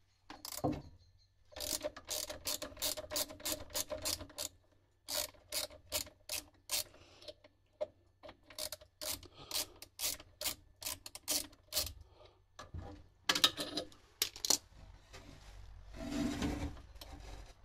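Socket ratchet clicking in quick runs with short pauses as a starter-motor mounting nut is undone, then some louder handling noise near the end.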